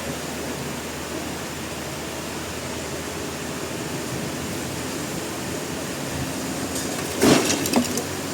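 Sawmill machinery running with a steady drone and low hum. About seven seconds in, a brief burst of loud knocks and clatter.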